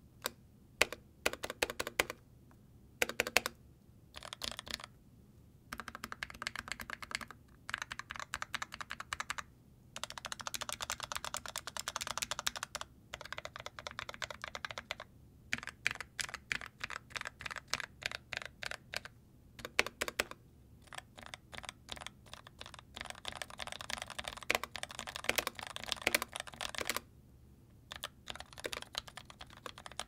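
Typing test on an NK65 Entry mechanical keyboard with lubed, switch-filmed Milky Gateron Yellow linear switches in a polycarbonate case, with an aluminium plate and a silicone dampener inside. The keys clack in fast runs broken by short pauses, with a few louder single strikes, and the typing sounds like 'butter'.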